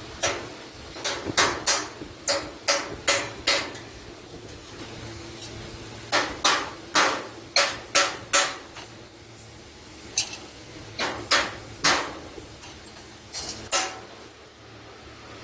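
A hammer striking sheet iron in irregular runs of sharp blows, several at a time with short pauses between, each blow ringing briefly.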